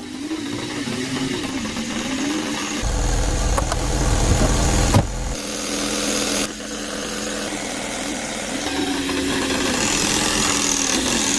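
An engine running with a slightly wavering pitch, its sound changing abruptly several times.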